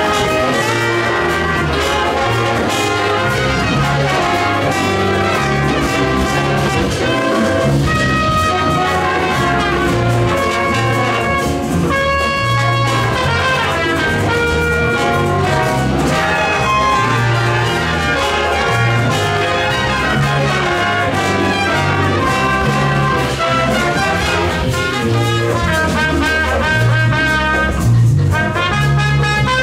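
High school jazz big band playing live: trumpets, trombones and saxophones in full ensemble over piano, bass and drums.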